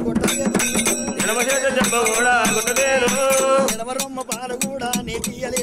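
Male voices singing an Oggu katha folk ballad in Telugu, with small brass hand cymbals struck in a brisk, steady rhythm; the voices ease off briefly about four seconds in.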